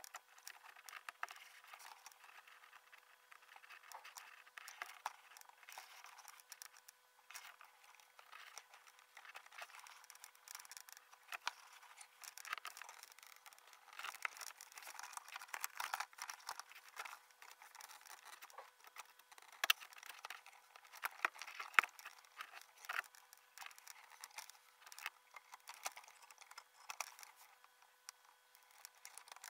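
Laparoscopic needle holders clicking and scraping as a suture is handled and tied on a fabric bowel model in a training box. Sped up five times, it comes out as a faint, rapid patter of small clicks and scrapes, with a few sharper clicks.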